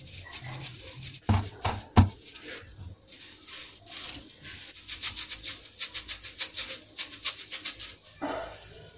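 A bundle of dry spaghetti handled between the fingers, the hard strands rubbing and clicking against each other. Three sharp knocks come in the first two seconds, a quick run of light clicks, about four or five a second, in the middle, and a dull thump near the end.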